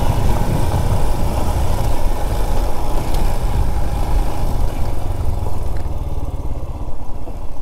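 Motorcycle engine running at low speed with wind noise on the microphone; the engine eases off about six seconds in.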